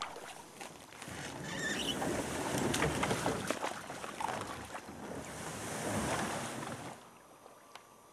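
Canoe being dragged through brush: the hull scraping over the ground while branches and dry shrubs rustle and crack against it. The noise drops away sharply about seven seconds in, leaving only a faint hush.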